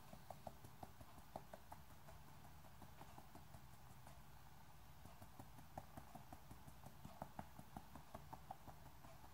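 Faint, quick taps of fingers against a small metal mesh sieve, sifting powdered sugar: a light, irregular patter of several taps a second.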